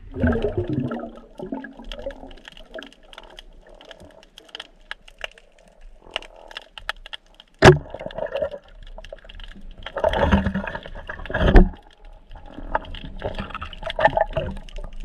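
Underwater sounds of spearfishing: scattered sharp clicks and water rushing and gurgling past the camera, with one very sharp crack about eight seconds in and two loud rushes of water a little after ten seconds.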